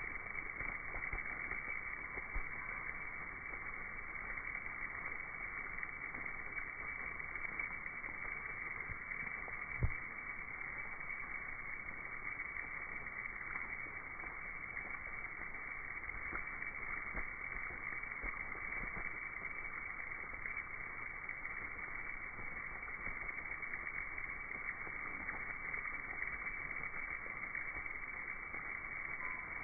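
Slowed-down, steady rushing noise of a mass bat emergence: thousands of Mexican free-tailed bats streaming out of a cave mouth, their wings and calls blurred together. A single short thump about ten seconds in.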